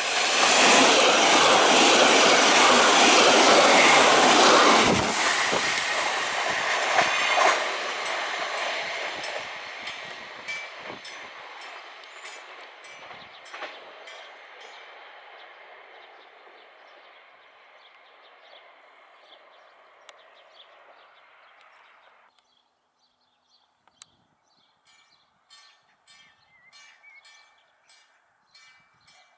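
A passenger railcar passes close by: a loud rush of running noise with wheel clatter over the rails, fading steadily over the next fifteen seconds or so as it draws away. Near the end the sound cuts to a much quieter scene with short, high bird chirps.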